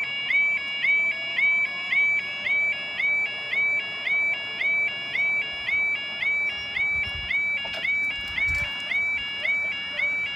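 Level crossing yodalarm: a rapidly repeating two-tone electronic warble, pulsing several times a second. It sounds while the road barriers lower, warning that a train is approaching.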